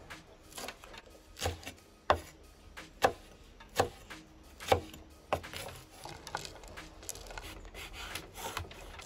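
Kitchen knife slicing green chillies on a wooden cutting board: the blade knocks the board about once a second, the strokes turning softer after about five seconds.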